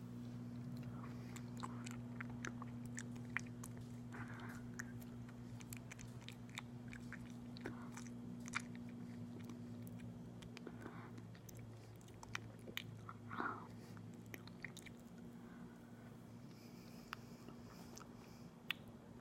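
Close-miked chewing of aloe vera gel: scattered sticky, wet clicks and smacks from the mouth, over a steady low hum.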